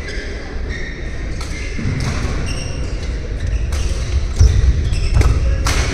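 Badminton rally: a string of sharp racket hits on the shuttlecock, with heavy footfalls and short shoe squeaks on the court floor.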